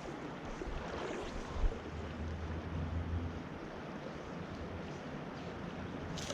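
Steady rush of flowing creek water, with a low rumble of wind on the microphone that comes and goes.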